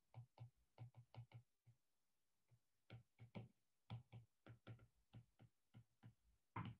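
Faint, irregular tapping and clicking of a stylus tip on a tablet's glass screen as words are handwritten, with a gap of about a second near the start.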